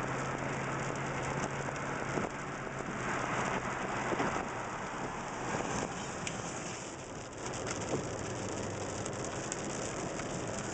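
Steady thunderstorm rain hitting a vehicle, many separate drop hits over an even hiss, with a low steady hum underneath that fades out about four seconds in.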